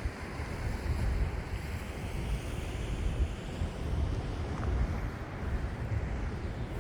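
Wind buffeting the microphone in uneven gusts over the steady wash of sea waves on a rocky shore.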